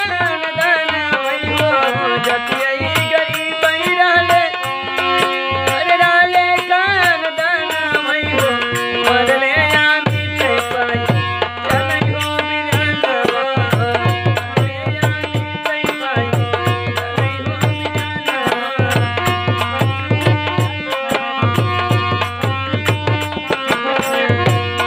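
Bhojpuri bhajan played live: a man sings over a harmonium's held reed chords, with a dholak beating a steady rhythm that drops out briefly a few times.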